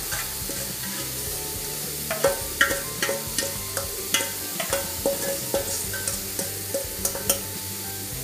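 Granulated sugar tipped from a steel bowl into a pan of cooked grated carrot. A string of short, sharp metallic taps and scrapes of the bowl and spoon against the pan can be heard, and stirring begins near the end.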